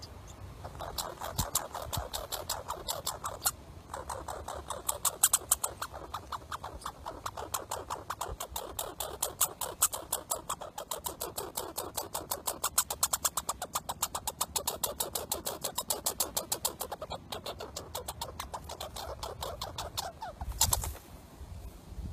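Squirrel giving a long run of rapid chattering alarm calls, about five a second, with a short pause about three seconds in. A brief louder noise comes shortly before the calls stop near the end.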